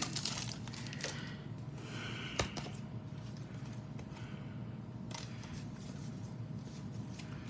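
Faint handling of trading cards: a few soft clicks and brief rustles as freshly pulled cards are slid and flipped through.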